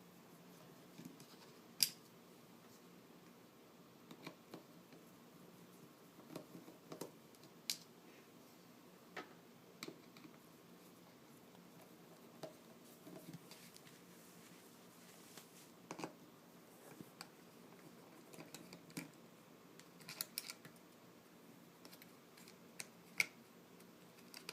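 Scattered light clicks and taps of screws being backed out of a NutriBullet blender's plastic base with a screwdriver, the sharpest about two seconds in and near the end.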